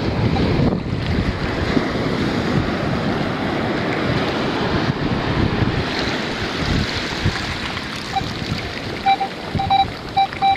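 Surf washing around the legs with wind on the microphone. About eight seconds in, a beach metal detector starts giving short beeps at one pitch, coming in a quick run.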